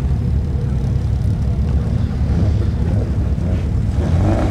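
A petrol car engine idling with a steady low rumble, with a brief rising rev near the end.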